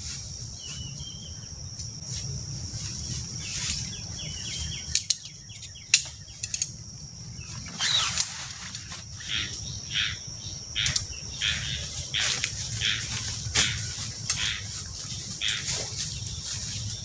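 Nylon tent fabric and stuff sack rustling and crinkling in short repeated bursts as a dome tent is handled, with a few sharp clicks and knocks and footsteps on dry leaf litter. A steady high insect trill, like crickets, runs underneath.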